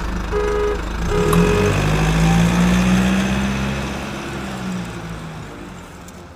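Truck engine sound effect: an engine running with two short horn beeps about a second apart, then the engine revs up and slowly fades away.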